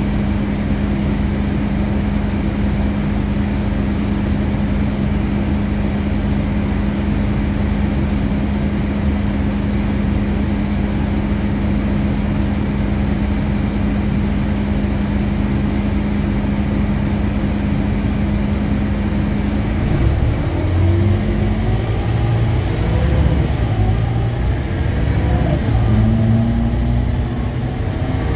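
Scania K310UA articulated bus's diesel engine heard from inside the passenger cabin, idling with a steady low hum, then revving up about two-thirds of the way through as the bus pulls away, the pitch climbing and stepping as the ZF Ecomat automatic gearbox changes up.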